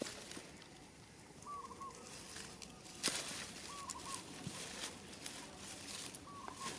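A hand scrapes and rakes through dry, crumbly soil and grass, with one sharper click about three seconds in. A bird's short call repeats three times in the background.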